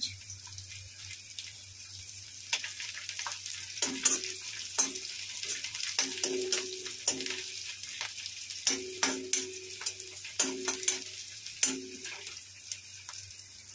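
Chopped garlic, ginger and green chillies sizzling in hot oil in an iron kadhai. From about two and a half seconds in until near the end, a steel ladle stirs them, scraping and clanking against the pan, some strokes ringing briefly.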